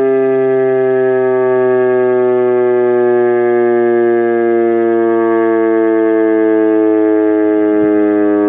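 Federal Signal RSH-10B electromechanical warning siren sounding during a test, heard from directly beneath it: a loud, steady multi-tone howl whose pitch slowly sinks over the few seconds.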